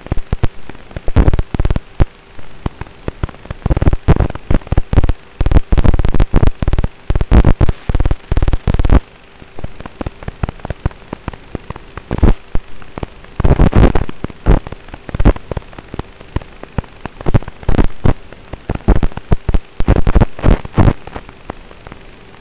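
Wind buffeting the onboard microphone of an FPV aircraft in flight, heard as loud, irregular crackling gusts that come and go, with quieter stretches between them. A faint steady tone runs underneath.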